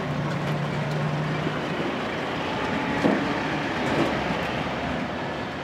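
Pickup-truck taxi driving along, heard from its open-sided passenger bed: a steady engine drone under a wash of road and wind noise, with a couple of knocks about three and four seconds in.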